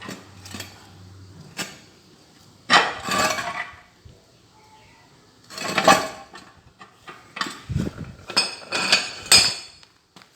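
Steel parts clinking and scraping in three short bursts with scattered clicks between them, as from a small homemade metal vise being handled. A low steady hum stops about a second and a half in.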